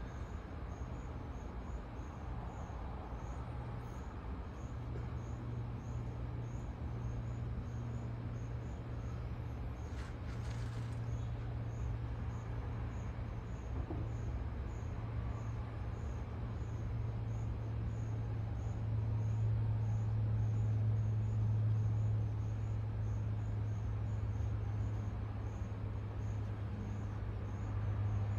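A steady low mechanical hum that grows a little louder past the middle, with night insects chirping faintly at an even pace of a little over one chirp a second.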